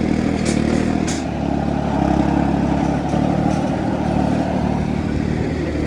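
Tractor engine running steadily under load while pulling a disc harrow through wet soil, with two short, sharp high-pitched sounds about half a second and a second in.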